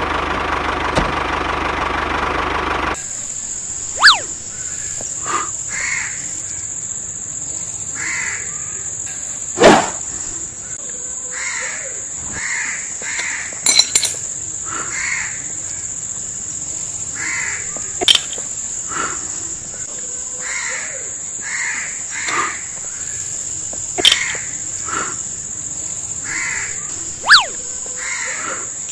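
Music for the first three seconds, then birds calling with repeated harsh caws, about one a second, over a steady high-pitched whine. A few sharp clicks stand out above them.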